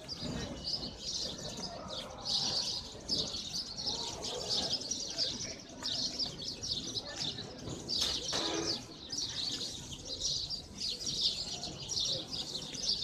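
A dense chorus of many house sparrows chirping at once in a communal roost in bougainvillea bushes, a continuous overlapping chatter with no break.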